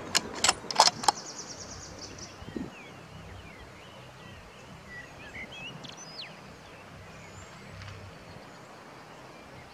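Four sharp clicks in quick succession within about the first second, followed by a brief fast high-pitched pulsing. Then faint bird chirps over a quiet outdoor background.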